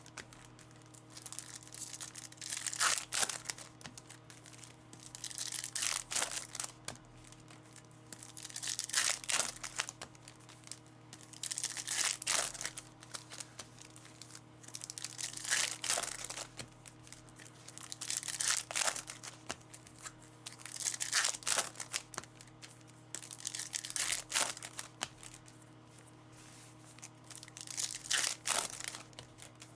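Foil trading-card packs being torn open one after another: a crinkling rip about every three seconds, over a steady low hum.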